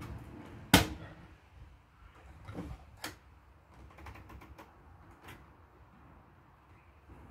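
Clicks from an AEG Lavamat front-loading washing machine's control panel as it is worked by hand: one sharp loud click about a second in, then a few softer clicks and a quick run of small clicks from the program dial.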